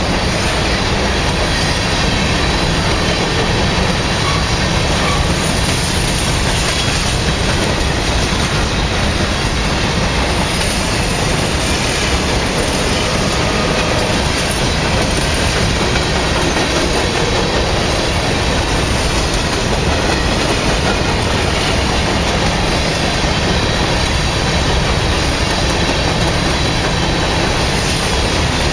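Norfolk Southern freight train's covered hopper cars rolling steadily past close by, steel wheels clattering on the rails.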